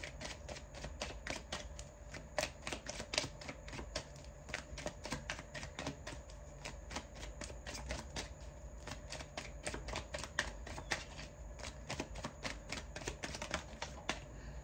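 Tarot cards being shuffled by hand: an irregular run of soft card clicks and snaps, several a second.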